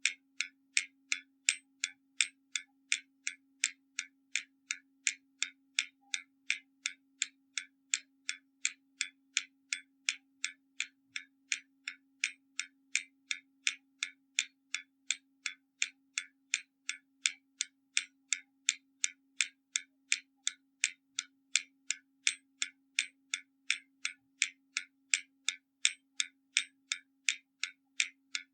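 Hermle mechanical skeleton clock ticking, about two and a half sharp, even ticks a second.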